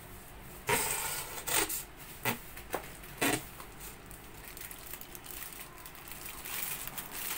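Clear plastic packaging crinkling and rustling in hand as a small wrapped part is handled, with several loud sharp crackles in the first half and softer rustling near the end.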